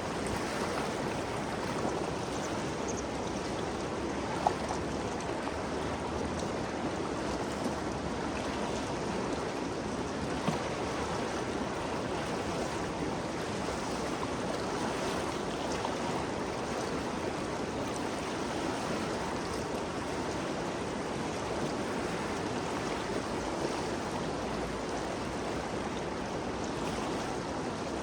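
Ganges River water flowing and rushing as a steady, even wash of noise. Two brief sharp ticks stand out, about four seconds in and again about ten seconds in.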